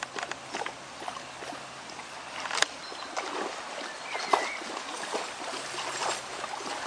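Water splashing and trickling in shallow water, with many small irregular splashes and two sharper knocks, about two and a half and four and a half seconds in.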